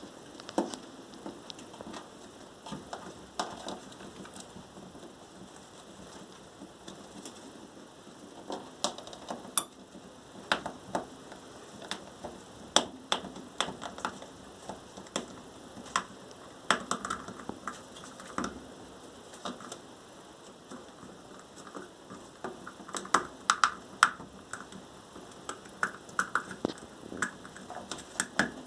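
A pet worrying a squeaky toy: irregular clicks and taps, with short squeaks now and then, more frequent near the end.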